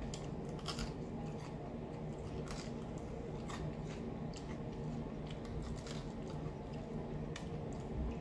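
Crispy fried black bass being picked apart by hand and chewed: scattered sharp crackles and crunches of the fried crust, over a low steady hum.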